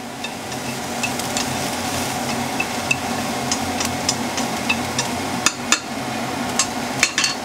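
Sliced shallots, garlic and green onion sizzling in hot oil in a nonstick wok, with scattered clicks of wooden chopsticks tapping the pan as the aromatics are stirred; the clicks come more often in the second half.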